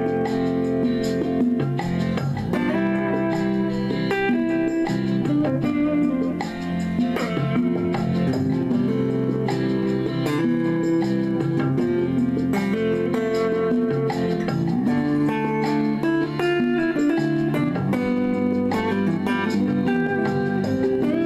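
Clean electric guitar picking a melody in C through a small 10-watt Cube practice amp, playing along with a recorded backing track.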